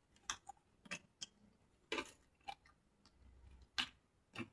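Mouth sounds of someone chewing raw leunca berries: about half a dozen faint, crisp crunches and clicks at irregular intervals.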